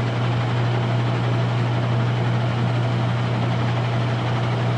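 Weiler DA 260 engine lathe running with its spindle turning in the low speed range, a steady machine hum without change.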